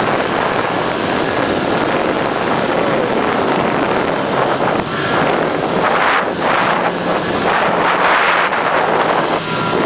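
Snowmobile engine running on a downhill ride over snow, mixed with wind rushing over the microphone. The roar swells louder twice, about six and eight seconds in.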